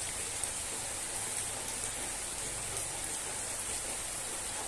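Steady rain falling on trees and ground: an even, unbroken hiss.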